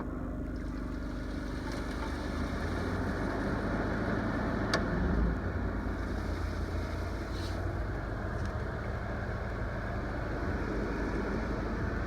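A 5,000 BTU window air conditioner running, a steady fan and compressor hum, over the drone of the small Yamaha inverter generator powering it. The sound fills out into a steadier rush after about two seconds, and there is a sharp click about five seconds in.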